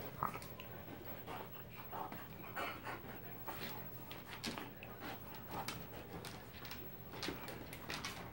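A dog panting in quick, irregular breaths while play-fighting with a raccoon.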